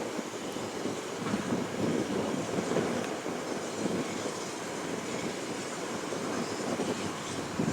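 A heritage railway train running, a steady rolling rumble with irregular knocks from its wheels on the track.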